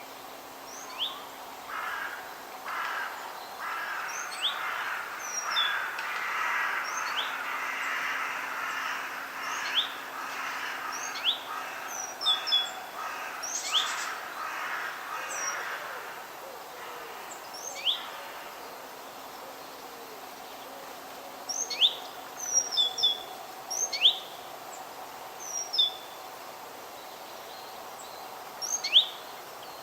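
Forest birds calling: many short, sharp chirps that sweep downward, coming singly and in louder quick clusters. Over the first half a denser, busier chattering wash sits beneath them.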